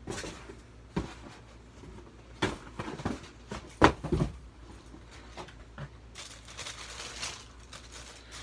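A cardboard shoebox being handled and opened: a string of knocks and bumps, the loudest about four seconds in, then a longer rustle of crinkled wrapping paper being pulled back.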